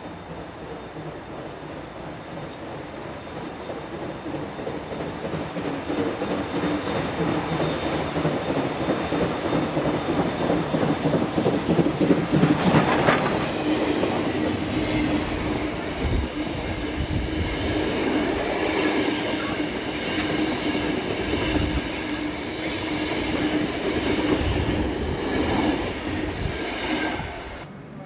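Queensland Railways BB18¼ class steam locomotive and its train approaching and passing close by, loudest as the engine goes past about halfway through. After that the carriages roll by with a steady whine, a high ringing and a few wheel knocks over rail joints, and the sound cuts off just before the end.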